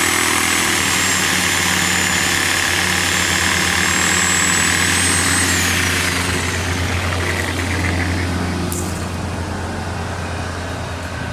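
Sawzall reciprocating saw with a 12-inch blade cutting through a dense stump root, running steadily with a low hum. The dense root makes the whole saw shake rather than the blade stroking freely. A high whine in it falls away about six seconds in.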